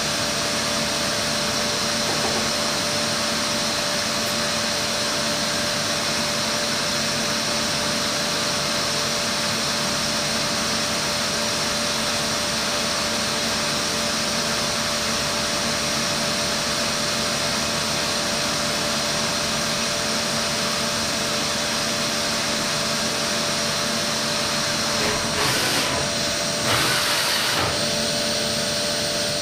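Matsuura H.Plus-630 horizontal machining centre running a spindle-mounted Komet KomTronic head as its tool works inside the bore of a chucked workpiece: a steady machine whir with fixed hums. Two brief louder rushes of noise come near the end.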